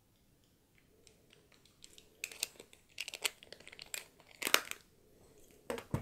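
Handling noise from a Canon EOS M mirrorless camera being turned over in the hands: after a quiet start, a run of sharp clicks and crackly rustles, loudest about four and a half seconds in.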